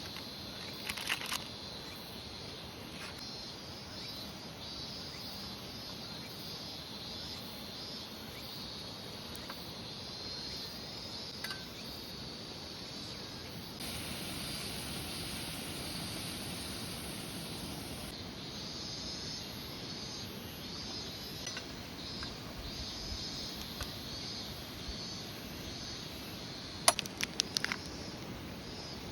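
Steady rush of a clear mountain stream with insects chirping in a pulsing high band, and a few sharp clicks about a second in and again near the end.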